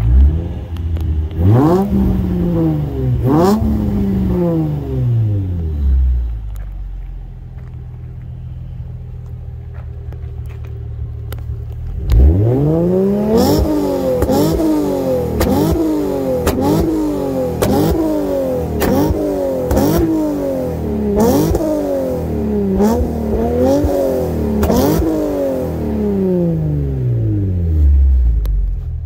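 Nissan 350Z's 3.5-litre V6 revved at a standstill through an Invidia Gemini dual-exit exhaust: two long revs at the start, a few seconds of idle, then a run of quick throttle blips about a second apart from about twelve seconds in, settling back to idle near the end.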